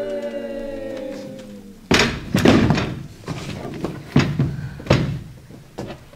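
A held musical note, sliding slightly down in pitch, fades out over the first two seconds. Then comes a run of loud, irregular thuds on the stage, about six in four seconds.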